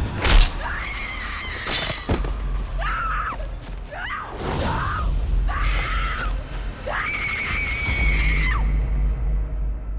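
A young woman screaming in terror, several long shrill screams with the last one held longest, over a dark horror-film score with a low rumble. Two sharp hits cut through in the first two seconds.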